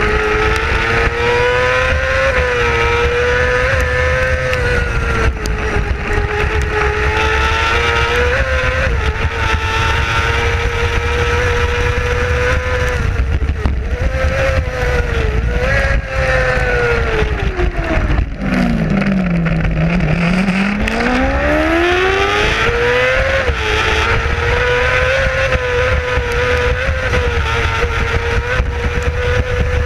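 Racing sidecar outfit's engine running hard at high revs, heard on board over low wind rumble. About eighteen seconds in the revs fall sharply, then climb back up over the next few seconds.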